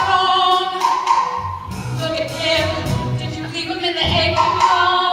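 Musical-theatre song: a singing voice holding long notes over instrumental accompaniment.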